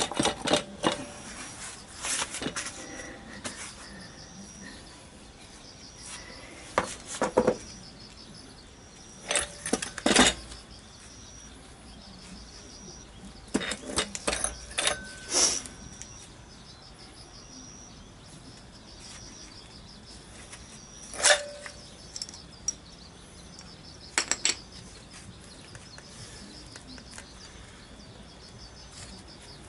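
Scattered metallic clinks and knocks from scooter engine parts and hand tools being handled on a concrete floor during disassembly. They come in short clusters, and the loudest single knock falls about two-thirds of the way through.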